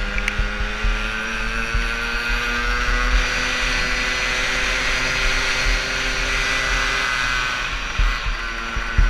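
Yamaha PW50's 49cc two-stroke single-cylinder engine running hard under racing throttle; its pitch climbs over the first few seconds, holds, then drops near the end. A low rumble of wind and bumps sits under it.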